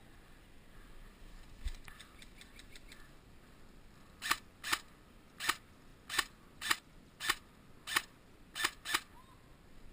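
Airsoft gun firing single shots: about nine sharp cracks at roughly two a second, starting about four seconds in, after a faint quick run of ticks near two seconds in.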